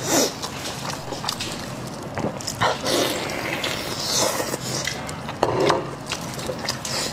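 Close-miked wet eating sounds: lip smacks, slurps and chewing as sauce-soaked meat is bitten and pulled apart with gloved hands, in a string of irregular squelches.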